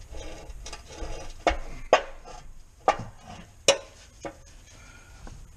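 Metal oil pan clinking and knocking as it is handled up into place under the engine, with a few sharp metallic knocks and light scraping between them.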